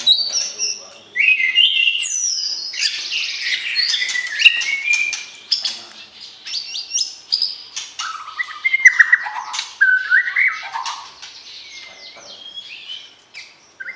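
White-rumped shama (murai batu) singing a rich, varied song of loud whistled phrases that glide up and down, mixed with sharp clicking notes. The song thins out and grows quieter in the last few seconds.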